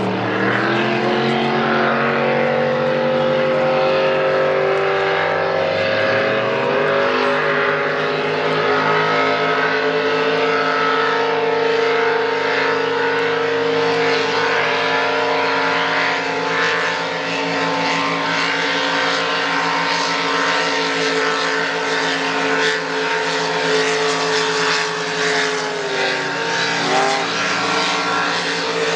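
Racing powerboat engines running at full speed: a loud, steady high-revving drone that climbs in pitch in the first couple of seconds and dips briefly near the end.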